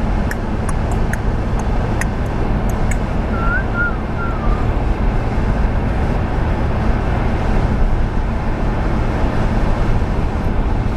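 Car driving, heard from inside the cabin: a steady rumble of engine and tyres on the road. A few light ticks come in the first few seconds, and a brief wavering squeak about four seconds in.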